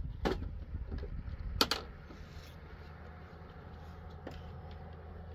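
Small electric sewing machine stitching with a light mechanical clatter, with a few sharp clicks in the first two seconds.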